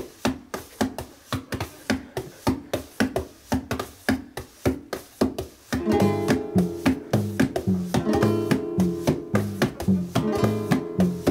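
Instrumental intro of a song: a guitar keeping a steady strummed rhythm, joined about six seconds in by bass and fuller backing.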